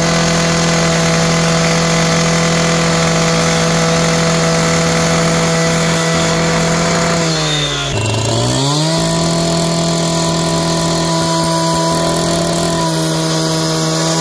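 Two-stroke Stihl petrol cut-off saw running flat out, its diamond blade cutting down a brick pier. Just before halfway the revs drop briefly, then climb back to full speed.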